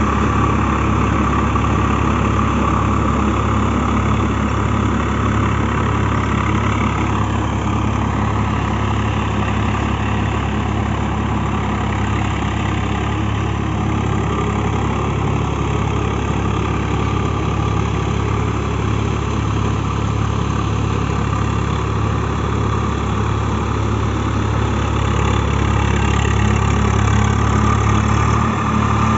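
Swaraj 744 FE tractor's three-cylinder diesel engine running steadily while it pulls a rotavator through wet paddy mud, a little louder near the end.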